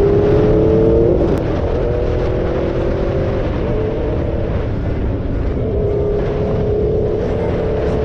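Superbike engine under a rider: it rises in pitch under acceleration, drops about a second in as it shifts up, then holds a steady cruising note over a constant low rush.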